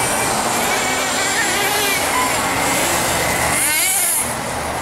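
Radio-controlled nitro touring cars' small two-stroke glow engines whining at high revs as they lap, their pitch rising and falling with throttle. One car passes closer about three and a half seconds in.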